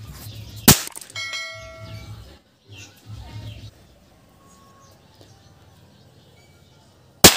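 Toy cap bomb going off as it hits the ground: two sharp, loud cap bangs about six and a half seconds apart, the first followed by a brief ringing tone.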